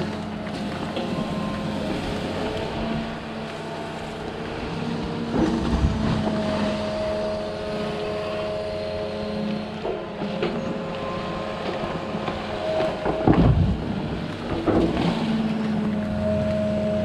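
Excavator's diesel engine and hydraulics working steadily, the pitch of the hum shifting as it comes under load, with a few heavy thumps as it digs out a beaver dam; the loudest is about thirteen seconds in.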